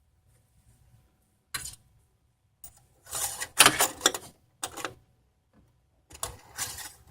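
An engine oil dipstick being pulled out and slid back into its tube: several short bursts of scraping and rattling, the longest lasting about a second near the middle.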